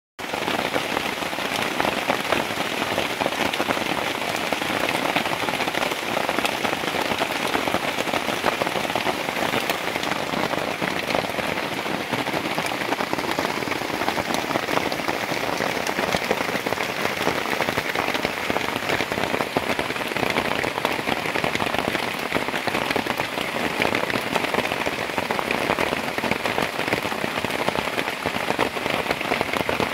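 Steady heavy rain, a dense even patter of drops.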